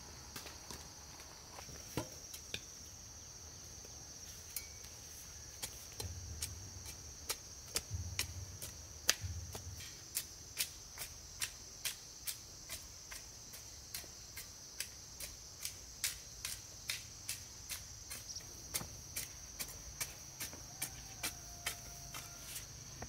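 A hoe chopping into dry, stony soil in quick, regular strokes, about two a second, over steady high insect chirring.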